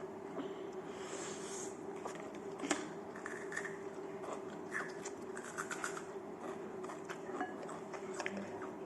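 Eating at a table: scattered small clicks, taps and scrapes of utensils and dishes, one sharper click about three seconds in, over a steady low hum.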